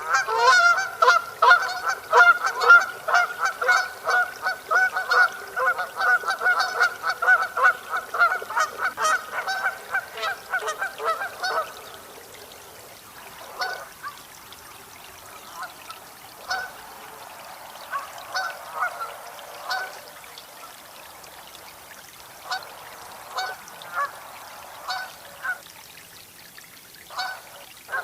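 Canada geese honking: a dense run of rapid, overlapping honks for about the first twelve seconds, then fewer, quieter honks spaced a second or two apart.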